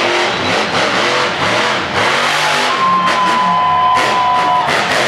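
Monster truck engine running hard and revving under load, with music playing along with it; a steady high note is held for over a second in the second half.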